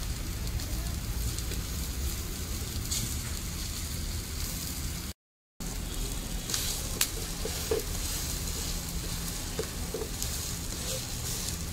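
Besan cheela frying in refined oil on a nonstick pan over a wood fire, sizzling steadily with a few light clicks. The sound drops out for a moment about five seconds in.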